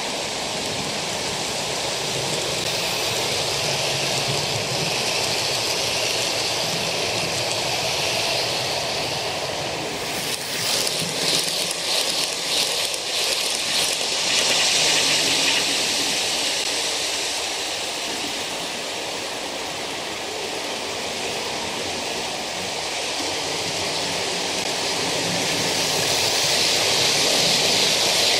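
OO gauge model passenger trains running on the layout track: a steady rushing rumble of wheels and motors. About ten seconds in, coaches pass close and the wheels click rapidly over the rail joints for a few seconds, and the sound grows louder again near the end as another train passes close.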